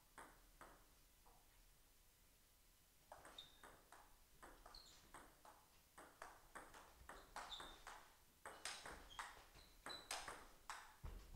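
Table tennis ball clicking off paddles and table in a rally, faint. A few clicks of the ball bounced before the serve, then a short pause. From about three seconds in, an even run of about three clicks a second.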